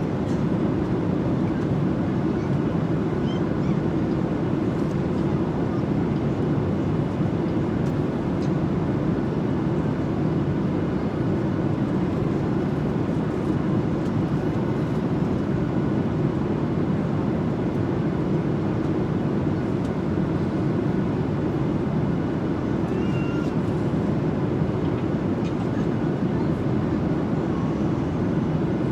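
Steady low rushing noise inside a jet airliner's cabin in flight, constant throughout.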